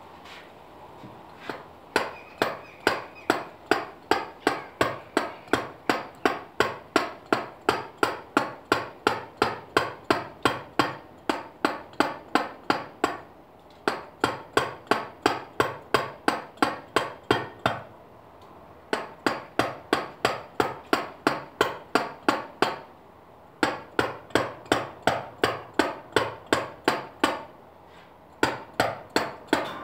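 Mallet blows on a chisel cutting into a limestone block, a sharp knock with a brief ring at each strike. The blows come steadily at about two to three a second, in runs of a few seconds with short breaks between them.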